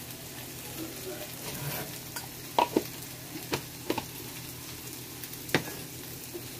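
Cauliflower, green beans, potatoes and carrots sizzling in butter in a nonstick frying pan, with a wooden spatula stirring them. About five sharp knocks of the spatula against the pan come in the middle.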